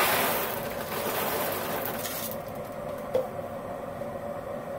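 Whole coffee beans poured out of a plastic Ninja single-serve blender cup into a paper coffee bag: the beans rattle and the bag rustles for about two seconds. A single click from handling the cup follows a second later.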